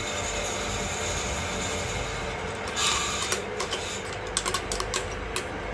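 A metal spoon scraping and knocking against the inside of a stainless steel mixer-grinder jar while ground lemon is scooped out, with a scrape about halfway through, then a run of irregular sharp clicks.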